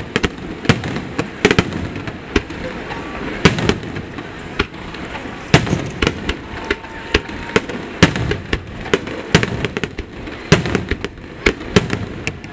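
Aerial fireworks shells bursting during the finale barrage: many sharp bangs in quick, irregular succession over a continuous low rumble.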